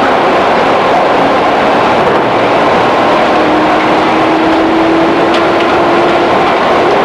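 Cabin running noise inside a JR 211-series electric multiple unit's motor car: a steady, loud rumble of wheels and running gear. A faint whine rises slowly in pitch from about three seconds in.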